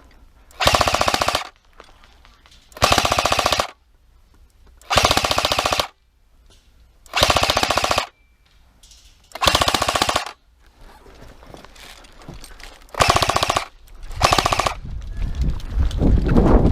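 Airsoft gun firing on full-auto in seven short bursts, each under a second, with pauses of one to two seconds between them and the last two close together. Near the end a low rumbling noise builds.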